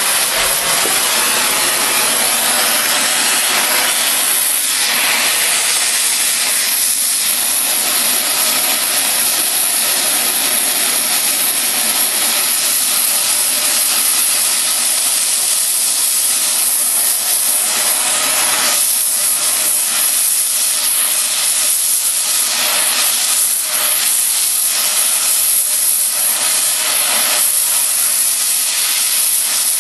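Oxy-fuel cutting torch hissing steadily as its oxygen jet flame-cuts through steel railroad rail.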